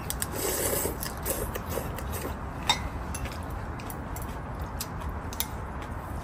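Close chewing and crunching of food, strongest in the first second, with chopsticks and spoons clicking against ceramic bowls; one sharper click comes a little under three seconds in.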